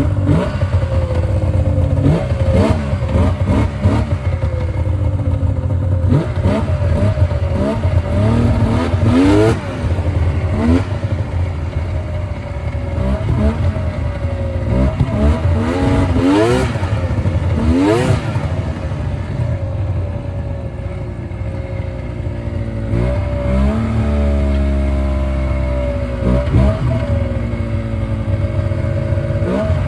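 Yamaha V-Max snowmobile's three-cylinder two-stroke engine running and being revved again and again, its pitch rising sharply and falling back every few seconds. It is running on freshly fitted spark plugs after one cylinder had been fouling.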